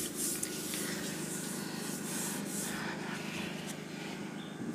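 Hand rubbing across the screen of an interactive display board to erase writing, heard as several short rubbing strokes in the first half or so, over a steady low hum.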